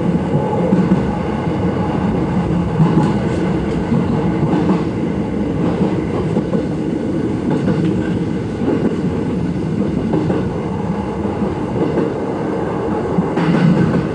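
Electric commuter train's steady running noise heard from inside the train, with a few faint clicks.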